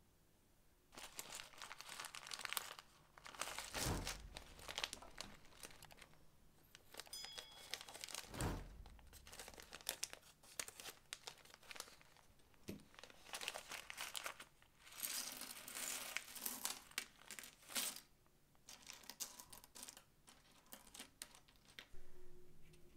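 A clear plastic bag crinkling and rustling in bursts as it is handled and opened and Christmas buttons and charms are shaken out of it, with a couple of soft thumps.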